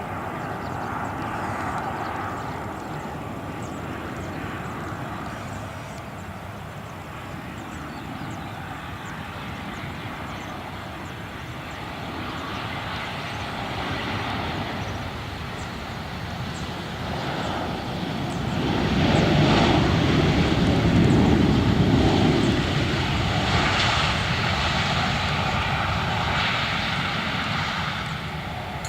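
Jet engines of an Airbus A319 airliner on its landing approach, a steady roar that swells to its loudest about two-thirds of the way through as the aircraft passes, then eases off.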